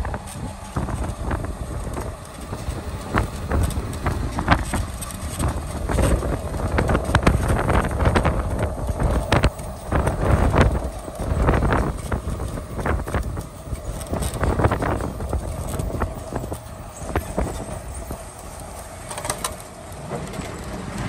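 Heavy truck on the move: steady engine and road rumble with frequent short knocks and rattles throughout.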